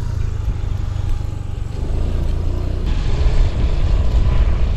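Motorbike running while being ridden, with a heavy uneven low rumble; the noise grows rougher and louder about three seconds in.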